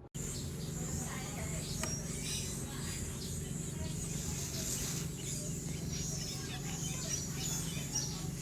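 Background ambience: a steady low hum with many short high chirps and a few faint clicks, coming in abruptly just after the start.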